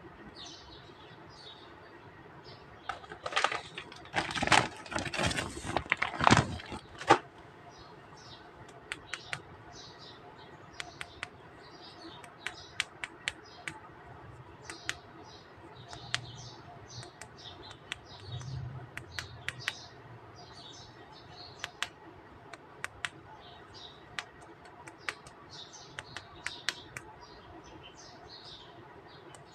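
Small birds chirping continually in the background, with a burst of rustling about three seconds in that lasts some four seconds, and then scattered sharp clicks of hard plastic toy figures being handled and set down.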